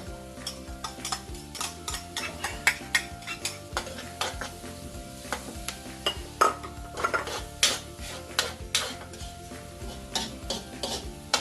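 Minced onions and garlic sautéing in butter in a pan, with a utensil stirring and striking the pan in frequent sharp, irregular clicks.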